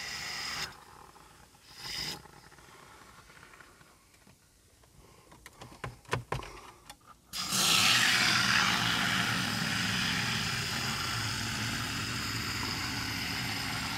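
A few light clicks and knocks, then about halfway through a loud, steady hiss: an aerosol can of foam air-conditioning cleaner spraying through its tube into a car's air vent.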